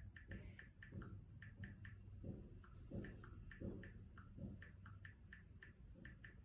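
Faint, irregular tapping of a thumb and fingernails on a smartphone's touchscreen while typing, about three short ticks a second.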